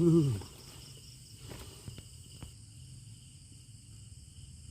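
Night insects, crickets among them, keep up a steady high-pitched chirring drone. Right at the start a short voice exclamation falls in pitch, and a few faint ticks come later.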